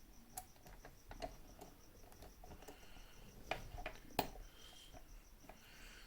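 Small, scattered metallic clicks and scrapes of a half-diamond pick and prybar tension tool working the pins of a Gen 1 Bilock, with the sharpest click about four seconds in.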